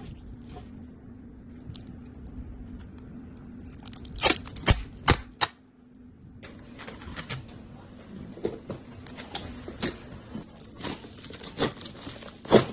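Low-noise packing tape being applied to a cardboard box: the tape unwinds without the usual loud ripping, leaving only scattered clicks and taps of handling, with a cluster of sharp knocks about four to five and a half seconds in. A steady low hum runs underneath.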